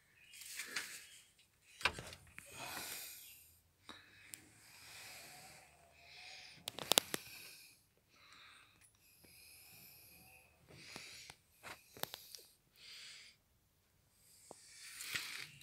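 Quiet, irregular handling noise from someone moving close to the microphone: breathy hissing puffs about a second long, with scattered sharp clicks and a louder cluster of clicks about seven seconds in.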